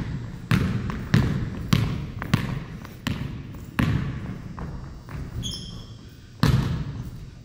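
Basketball dribbled hard on a hardwood gym floor: about seven bounces at a little under two a second as it is pushed up the court. Then a brief high sneaker squeak, and a louder bang near the end as the lay-up hits the backboard.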